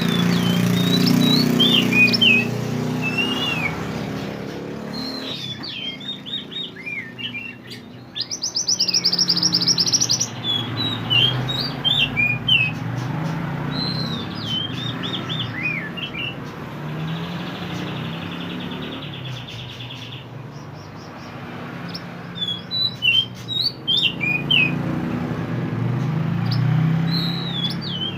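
Mantenan bird singing: a run of short, quick chirps that swoop up and down, with a loud buzzy trill about eight seconds in and a softer buzzing trill later on. A low hum sits underneath most of the time.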